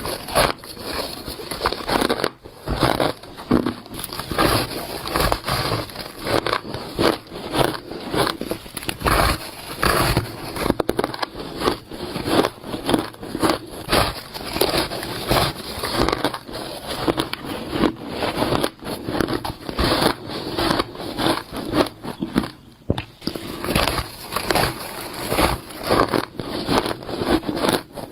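Close-up bites into squeaky, crunchy shaved ice, one crunching bite after another all the way through.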